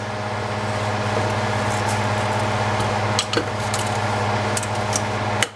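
Wire whisk working a thick flour roux in a stainless steel skillet: a steady, wet scraping through the paste, with a couple of clicks of the whisk against the pan, over a low steady hum.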